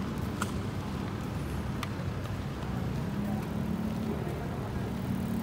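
Steady low hum and rumble of a city plaza, with a couple of sharp clicks about half a second and two seconds in.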